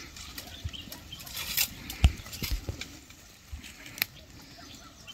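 Footsteps and hoof steps of sheep and goats on a grassy path, with scattered rustling and crackling of brush; a heavier thump about two seconds in.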